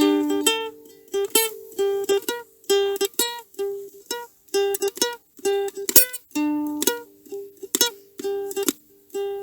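Live instrumental passage on a plucked string instrument: short picked notes and chords in a steady rhythm, with no singing.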